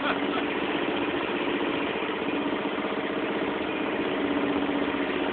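Zero-turn riding mower's engine running steadily at idle, an even hum with no change in speed.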